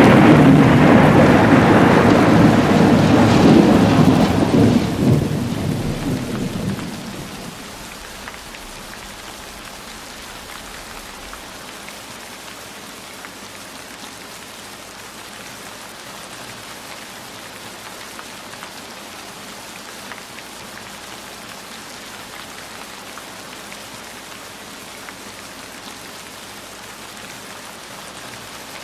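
A long roll of thunder, loud at first and dying away over about seven seconds, leaving steady rain falling.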